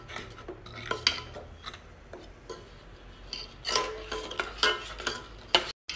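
Spoon stirring and scraping against a metal pot while mixing milk powder into milk, with scattered clinks and scrapes that come thicker in the second half.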